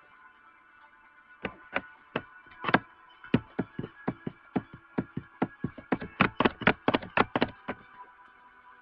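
A run of sharp knocks close to the microphone, about three a second at first and quickening to about six a second before stopping, over faint background music.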